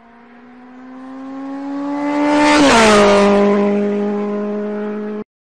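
Electric treadmill motor running with a steady hum that grows louder, drops in pitch about two and a half seconds in, then cuts off suddenly near the end.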